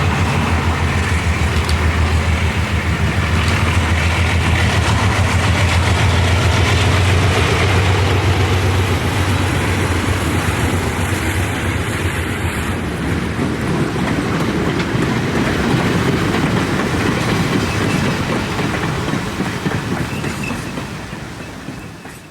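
Vintage Alco diesel locomotive and its train running, with a low engine drone strongest in the first half. The whole sound fades out near the end.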